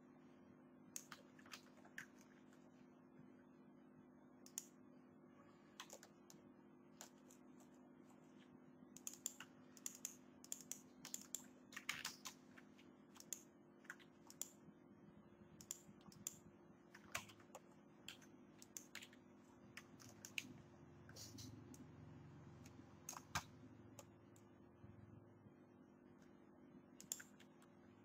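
Irregular, scattered clicks from a computer keyboard and mouse, several close together in places, over a faint steady hum.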